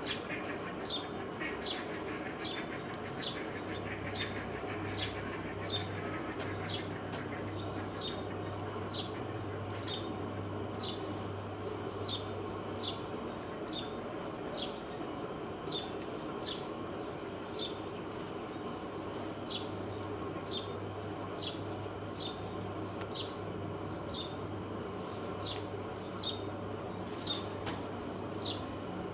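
A bird repeating a short, high, falling chirp about twice a second, over a steady background hum.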